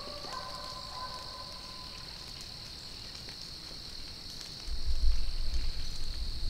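Steady high-pitched drone of crickets and other insects. For the first second or two a faint, drawn-out dog howl is heard. About three-quarters of the way through, a louder low rumble of camera handling begins as the camera is moved.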